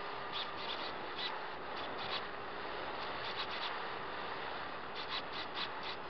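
Steady rush of airflow over the microphone of an Apprentice RC trainer plane in flight, with a faint steady electric-motor hum. It is broken by clusters of short scratchy ticks: a few about half a second in, more around two and three and a half seconds, and a quicker run of them near the end.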